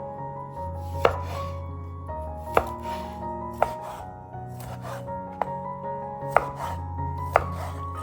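A knife chopping food on a cutting board: six sharp strikes about a second apart, each trailing a short cutting rasp, over soft background music.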